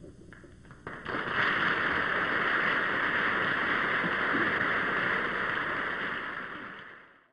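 Studio audience applauding on an old television soundtrack: a few scattered claps, then steady applause from about a second in that fades out near the end.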